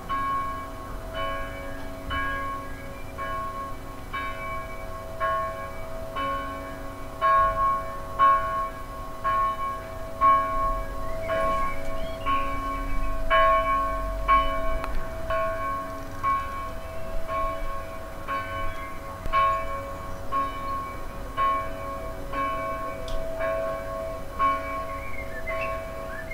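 Church bells ringing: a bell struck about once a second over the steady hum of larger bells.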